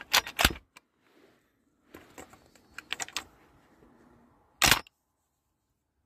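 Shotgun being handled and loaded with shells: a series of sharp metallic clicks and clacks, a quick cluster at the start and another about two to three seconds in, with one loud clack near the end.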